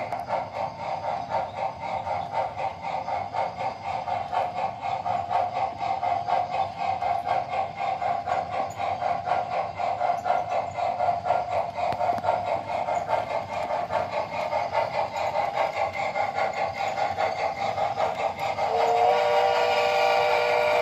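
O scale model geared steam locomotive's sound system chuffing in a fast, steady rhythm as the train runs. About two seconds before the end, the model's multi-chime steam whistle sounds and holds.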